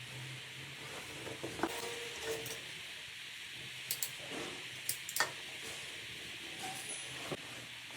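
A steady hiss with a few light clicks and knocks scattered through it.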